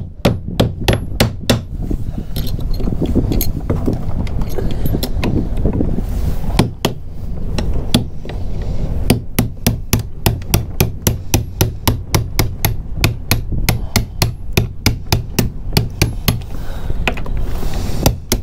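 Hand hammer striking a hull bolt in the wooden boat's frame to work it loose: a quick flurry of blows at first, a few scattered ones, then a long run of steady strikes about three a second. A low rumble of wind sits underneath.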